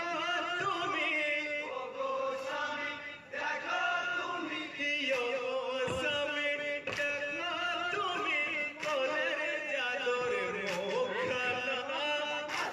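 Men chanting a marsiya, a Muharram elegy, with an ornamented, wavering melody, accompanied by a few sharp knocks.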